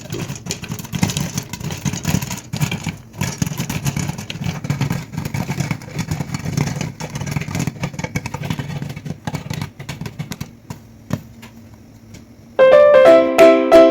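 Popcorn popping in a pan: a dense, irregular crackle of sharp pops over a low rumble, thinning out after about ten seconds. Near the end plucked ukulele-style music starts loudly.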